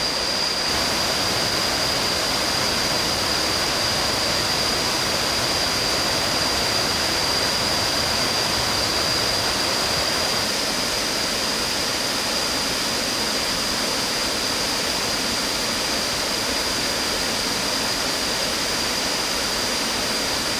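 Waterfall rushing steadily, water pouring over tiered limestone into a pool, a continuous even roar of falling water. A thin steady high whine runs through it.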